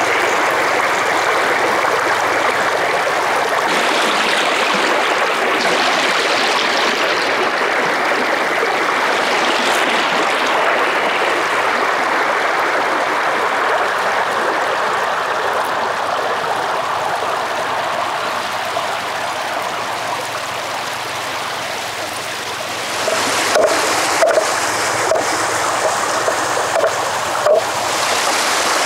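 Steady rush of running water. Light splashing and clicks come in about 23 seconds in.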